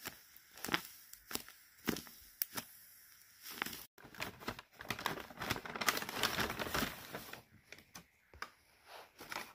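Crinkling of a handmade paper squishy squeezed in the hand, a sharp crinkle about every half second, then a dense rustle of a brown paper lunch bag being handled as a paper squishy goes into it, thinning out to a few crinkles near the end.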